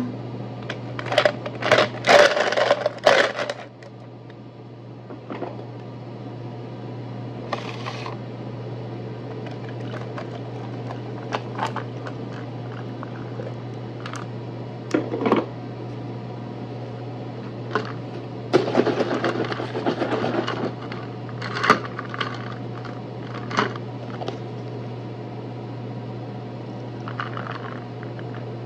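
Iced coffee being made: clinks and knocks of a metal spoon and ice in a plastic cup as hot coffee and then creamer are poured in, loudest about two seconds in. A steady low appliance hum runs underneath.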